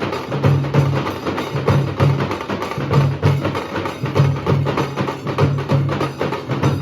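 Nasik dhol drumming: a fast, steady rhythm of deep bass strokes with sharp stick strikes layered over them.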